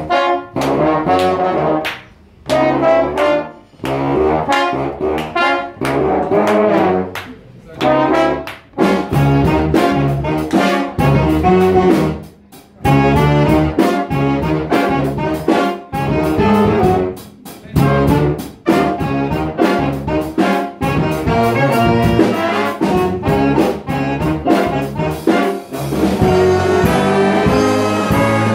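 Student jazz big band playing, with saxophones, trumpets and trombones in short punchy phrases broken by brief pauses, moving into longer held chords near the end.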